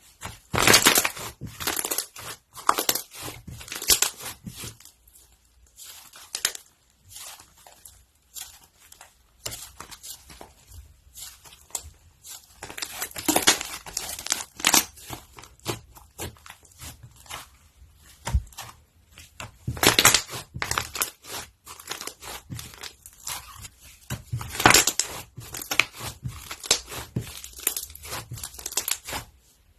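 Crunchy slime being squeezed, stretched and pressed by hand, giving irregular clusters of crackling and popping, with the loudest bursts about a third, two thirds and five sixths of the way through.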